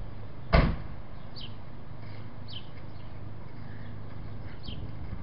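Chevrolet Silverado engine idling with a steady low hum, and a single loud thump about half a second in. Short faint high chirps come every second or two.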